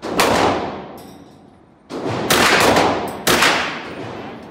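Select-fire AR-15-pattern rifle firing short bursts on full auto, with a long echoing decay after each burst off the indoor range's walls. One burst comes right at the start, two come close together about two seconds in, and another comes a little after three seconds.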